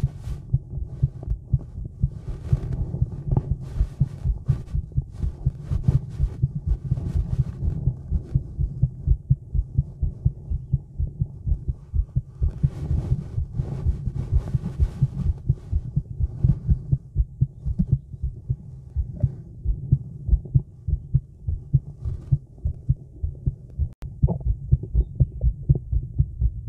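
A woman's heartbeat picked up by a microphone held against her chest: a steady, even run of low thumps. Faint clicks and rustles come and go over it.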